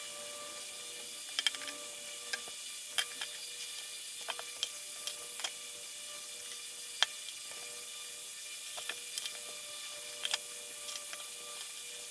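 Irregular small clicks and taps, about a dozen, from the Huawei Mate 20X's internal parts and housing being handled and pressed together, the sharpest about seven seconds in. A faint steady hum runs underneath.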